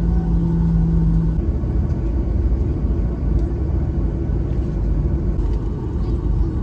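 Cabin rumble of a Boeing 737-800 on the ground with its CFM56-7B engines at idle, waiting for takeoff. A steady hum that was already there cuts off about a second and a half in, leaving the low, even engine and airflow rumble.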